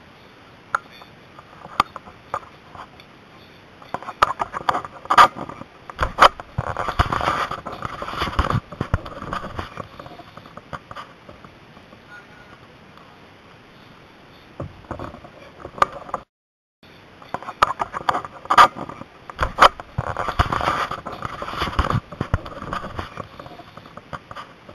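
Rustling, scraping and scattered knocks and clicks of gear being handled, as life jackets are taken down and pulled on. The handling comes in two busier stretches with quieter gaps between.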